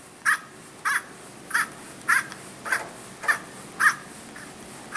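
A wrench loosening the clamping sleeve of a Guhring HPC milling chuck: a run of about eight short, squeaky metallic clicks, one roughly every half second.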